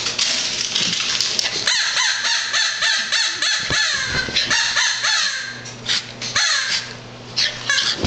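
Squeaky stuffed bird toy squeaking in a fast run of short chirps for several seconds, with a few shorter runs near the end.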